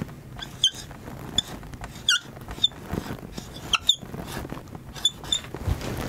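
Dry-erase marker squeaking against a whiteboard in a string of short, high squeals, one for each stroke as a word is written out.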